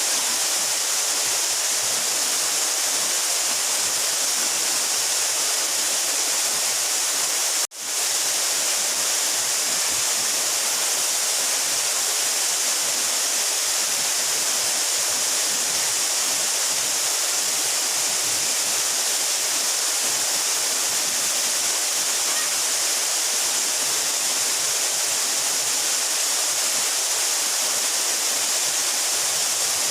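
Steady rushing of a 12-metre mountain waterfall, a dense hiss, with a momentary break in the sound about eight seconds in.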